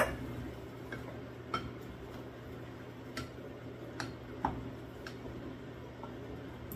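Wooden spatula stirring a bean and tomato mixture in a stainless steel saucepan, knocking against the pan in irregular sharp taps, over a steady low hum. The loudest knock comes right at the start.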